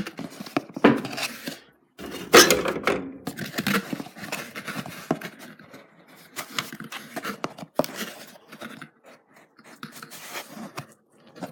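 Washing powder being handled and dosed for a machine wash: a plastic scoop scraping and knocking in the box and powder being tipped out, with irregular clicks and clatter, loudest about two seconds in.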